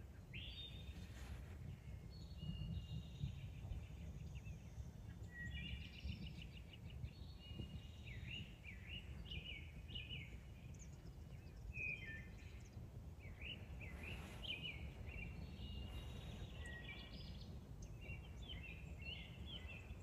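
Small songbirds singing: repeated short, high chirps and trills over a steady low rumble.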